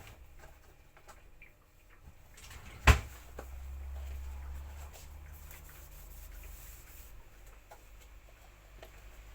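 A single sharp knock about three seconds in, the loudest sound, among scattered light handling clicks and a low rumble.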